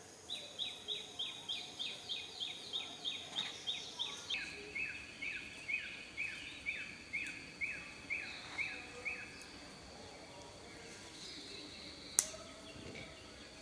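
An animal's call of short, falling chirps repeated about four to five times a second, first high-pitched, then lower-pitched after about four seconds, stopping about nine seconds in. A single sharp click near the end.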